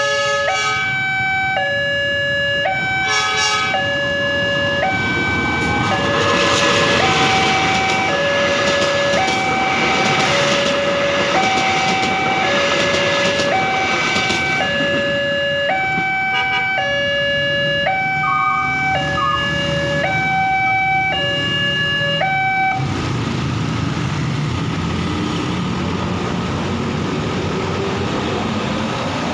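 Railway level-crossing warning alarm from a horn loudspeaker on the crossbuck: an electronic two-tone signal switching steadily between a higher and a lower pitch, each held for about two-thirds of a second. It stops about 23 seconds in as the crossing clears, leaving the low rumble of road traffic, with a lorry, driving over the crossing.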